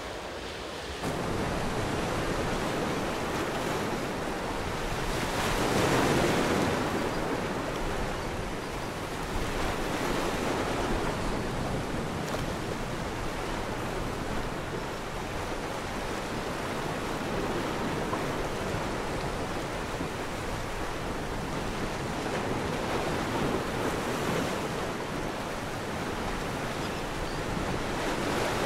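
Ocean surf: a steady rushing of waves breaking and washing, swelling and falling back every several seconds.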